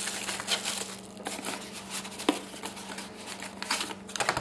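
Plastic bag and bubble wrap crinkling as packed parts are handled and lifted out of a cardboard box, with scattered small clicks and a sharper tick about two seconds in.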